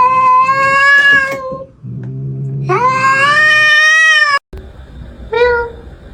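Cat meowing: two long, drawn-out meows, each rising at the start, with a low steady hum before and between them. After an abrupt cut, one short meow.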